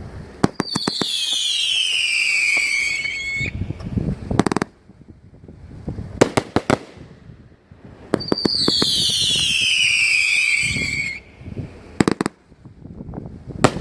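Alien Fireworks Bite Me 500-gram 25-shot fan cake firing: sharp bangs and pops in volleys, with two long shrill whistles that each fall in pitch over about three seconds, one starting about half a second in and one about eight seconds in.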